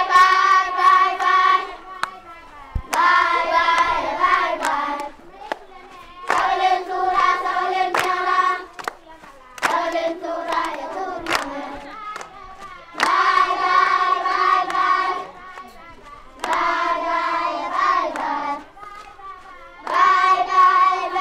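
A group of children singing a farewell song in a local language, in phrases of about two seconds with short pauses between them. Sharp hand claps come through here and there.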